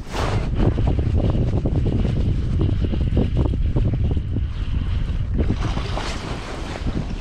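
Loud wind buffeting the microphone, over choppy lake water lapping against a kayak.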